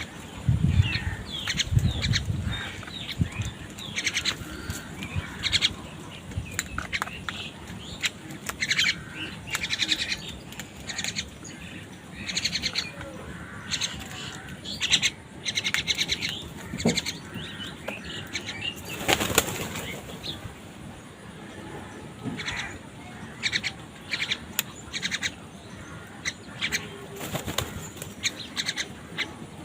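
Crows cawing repeatedly in short, harsh calls, overlapping one another, with bursts of wing flapping, the loudest about two-thirds of the way through.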